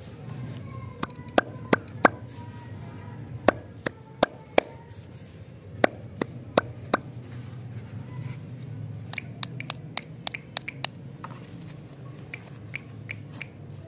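Sharp clicks from fingers tapping plastic-wrapped stick lollipops, about eleven in the first seven seconds. Later, lighter crackling ticks come from a plastic candy wrapper being handled and opened.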